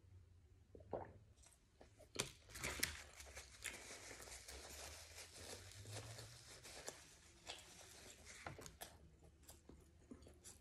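Faint crackly tearing and rustling with scattered small clicks as a piece of a sub sandwich is pulled apart by hand, starting a second or so in and fading out near the end.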